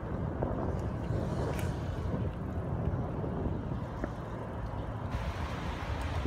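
Steady low rumble of outdoor street background noise, with a brighter hiss joining about five seconds in.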